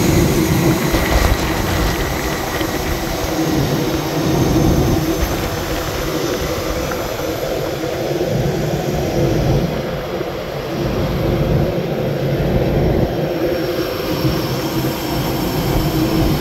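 Steady jet whine and rumble of aircraft running on the airport apron, with a constant hum under it and no break.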